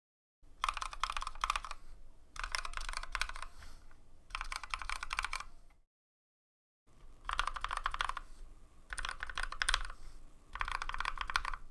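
Typing on a Tokyo60 mechanical keyboard with Novelkeys x Kailh Cream linear switches and ePBT keycaps, a rapid clatter of keystrokes. It comes in two passages, each made of three bursts, with about a second's silence between them.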